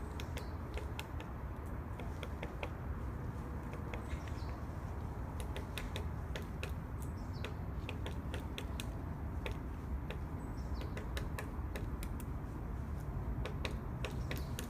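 Woodpecker pecking at wood: single sharp taps at an irregular pace, not a drumming roll, with a couple of faint short bird calls over a steady low background noise.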